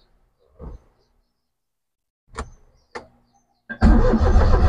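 A few faint clicks, then about three and a half seconds in the Perodua Kancil's engine is cranked loudly by its starter motor, on a battery that is weak.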